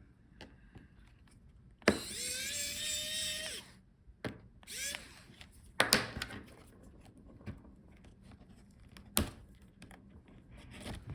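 Small electric screwdriver whirring for about a second and a half, its pitch rising slightly, as it backs out a laptop bottom-case screw. A second, shorter whir follows, and a few sharp clicks of screws and tool against the case.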